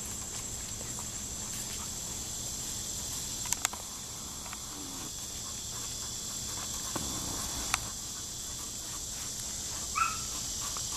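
Steady high-pitched chirring of insects, with a couple of sharp clicks and a short whine from the Labrador puppy near the end.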